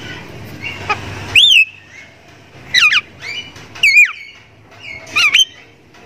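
Javan myna (jalak kebo) calling: four loud whistled notes about a second apart, each a quick gliding note that mostly slides down in pitch, with softer chatter between them.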